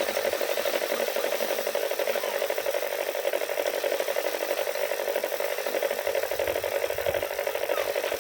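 Paddy threshing machine running steadily, its drum rubbing and rattling against rice stalks being threshed, in a fast even pulse.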